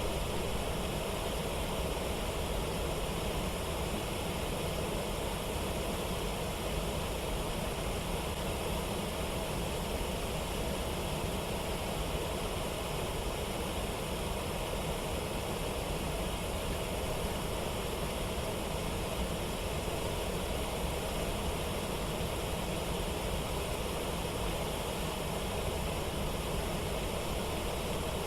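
Steady rushing of water over a waterfall, an even roar with no breaks.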